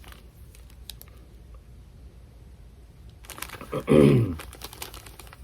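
A man clears his throat once, loud and falling in pitch, a little over three seconds in, after a few faint clicks.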